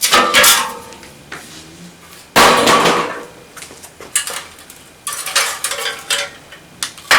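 Steel seat springs and a hand tool clanking against the metal seat frame as the springs are pulled out: a few sharp metallic clanks that ring briefly, the loudest about two and a half seconds in.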